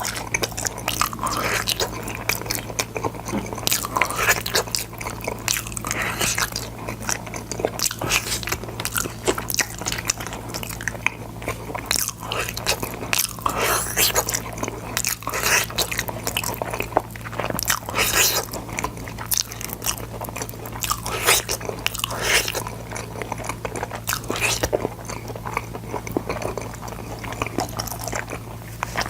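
A person biting and chewing boiled sword beans close to the microphone, with many irregular crisp crunches and wet chewing sounds, over a steady low hum.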